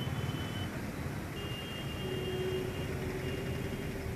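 Steady street traffic noise from a busy road, engines running, with a faint high tone held through much of it.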